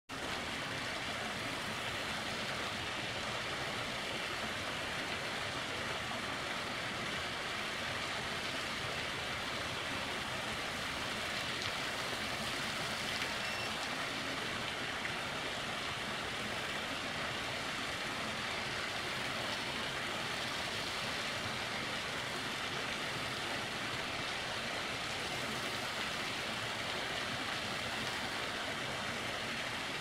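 Small waterfall spilling over rock ledges into a pool: a steady, even rush of falling water.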